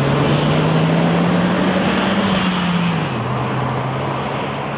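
Car engine under acceleration, its pitch climbing steadily. About three seconds in the revs drop sharply, as in an upshift, and the engine pulls on at lower pitch while slowly fading.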